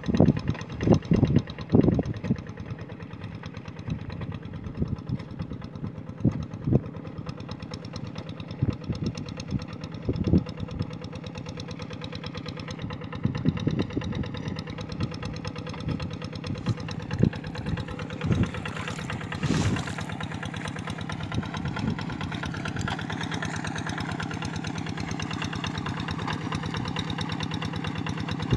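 Kubota RD85 single-cylinder diesel of a two-wheel hand tractor running steadily as it works a flooded rice paddy, growing louder as it comes closer. Irregular low thumps in the first few seconds.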